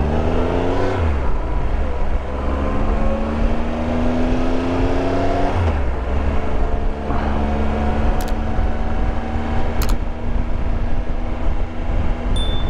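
Triumph Tiger Explorer 1200's three-cylinder engine pulling up through the gears while riding. The pitch rises steadily, then drops at gear changes about a second in and again near six seconds, over steady wind rumble on the microphone. Two sharp clicks come near the eight- and ten-second marks, and a short electronic beep near the end.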